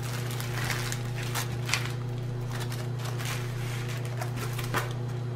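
Plastic and paper crinkling and rustling in short, irregular bursts as a rolled diamond painting canvas in its clear plastic sleeve and its backing paper are handled, over a steady low hum.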